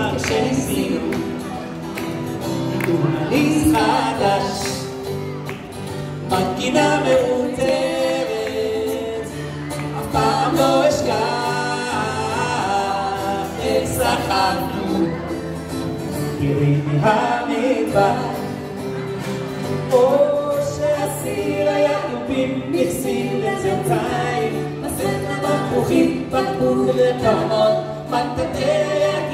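Live amplified performance of a Hebrew song: a man and a woman singing over strummed acoustic guitar.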